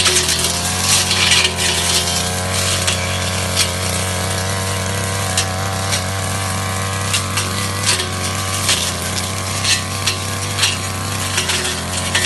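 Ogawa backpack two-stroke brush cutter running with a steady engine note while slashing dense brush, with frequent sharp ticks and cracks as the blade strikes stems.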